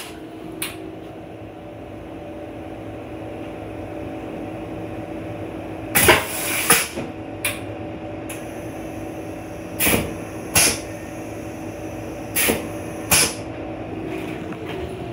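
Steady hum inside a Metro-North Comet IV rail coach's restroom. It is broken by three pairs of sharp clunks, each pair about 0.7 s apart, about six, ten and twelve seconds in.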